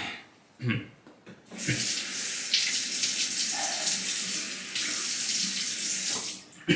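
Water running from a bathroom tap into a sink for about four and a half seconds, starting a second and a half in and stopping shortly before the end. This is the rinse at the end of a wet shave.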